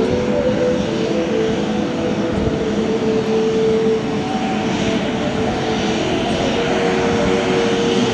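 Boeing 737 jet's CFM56 turbofan engines running steadily at taxi power: an even whine with a few held tones over a broad rush.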